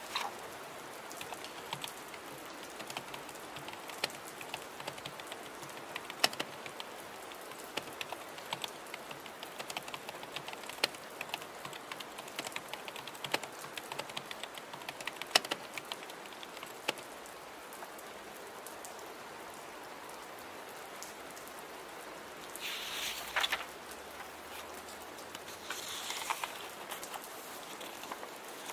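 Steady rain with keyboard typing, many quick clicks through the first half or so. Later come two short paper sounds, such as a page turning or a pen scratching.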